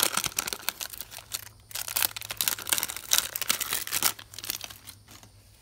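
Wrapper of a 1993-94 Topps basketball card pack crinkling and tearing as it is ripped open and the cards are pulled out. The crackling dies away about a second before the end.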